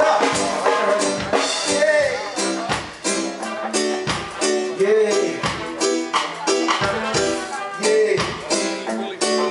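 Live roots reggae music: a band playing chords on a steady beat, with a voice singing over it.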